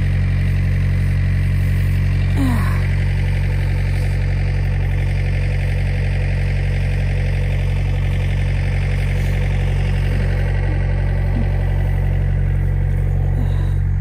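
Tractor engine idling steadily at an unchanging speed.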